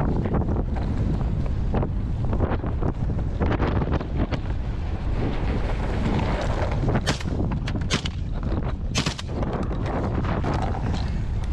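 Wind buffeting the microphone over the steady rumble of an off-road vehicle driving across a rough paddock, with a few brief knocks about seven to nine seconds in.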